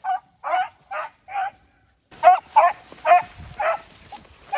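Beagles baying in short, repeated yelping calls while running a rabbit on its scent trail. There is a brief pause about two seconds in, then the calls resume.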